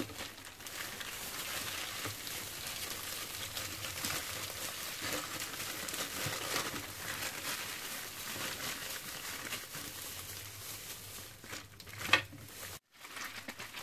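Plastic bag and disposable plastic gloves crinkling and rustling as chilled ground meat is squeezed out by hand into a food processor bowl. There is one brief, louder sound about twelve seconds in.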